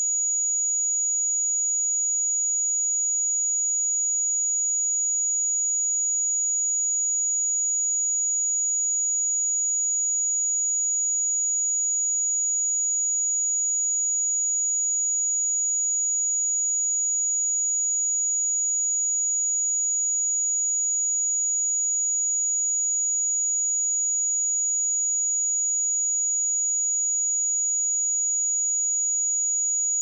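A pure 6817 Hz sine-wave test tone, one steady high-pitched tone held unchanged.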